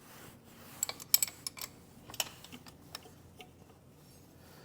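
Scattered light clicks and taps of hand tools working on a motorcycle's shift linkage, bunched about a second in with a few more after.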